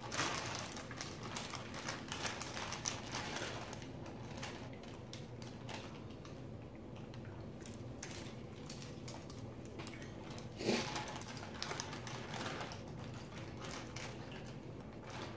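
Plastic freezer bag crinkling and rustling in quick, irregular crackles as a marinated chicken is handled out of it, busiest in the first few seconds and sparser after, with one louder brief rustle about eleven seconds in.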